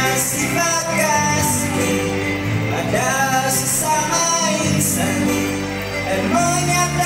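A man singing into a handheld microphone over a musical backing track, his amplified voice holding and gliding between sustained notes above a steady bass line.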